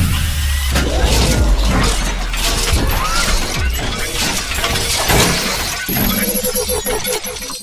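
Dramatic logo-intro sound effects: a run of crashing, glass-shattering hits over music, with a deep low rumble in the first couple of seconds.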